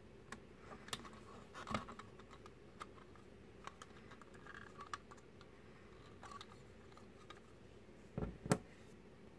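LEGO Technic plastic parts being handled: hinged panels folded and pieces fitted together, giving scattered light plastic clicks, with two louder knocks near the end.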